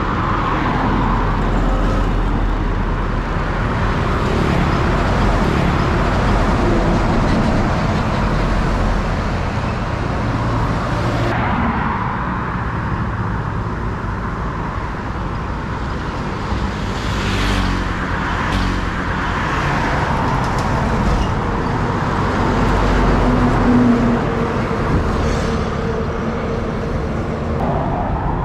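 Road traffic passing close by on a highway: cars and trucks going by one after another, with tyre hiss and engine noise swelling and fading as each one passes.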